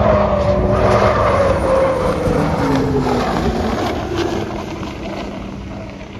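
Miss Madison unlimited hydroplane's Lycoming T55 gas turbine running flat out as the boat passes, its whine falling in pitch over the first few seconds. The sound then fades as the boat draws away.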